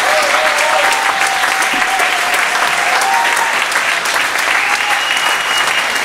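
Theatre audience applauding steadily, with voices whooping and one long high whistle starting near the end.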